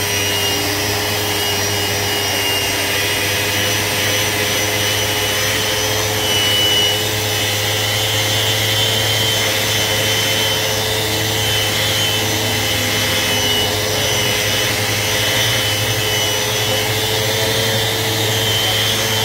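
Festool Rotex RO 150 eccentric sander running steadily at constant speed while sanding scratches out of a clear plastic block.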